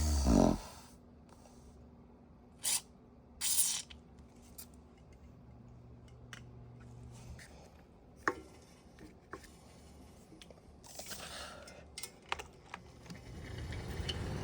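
Small clicks, taps and short rustles of exhaust fan parts being handled and adjusted, over a faint low hum. Near the end a low rushing noise begins to build.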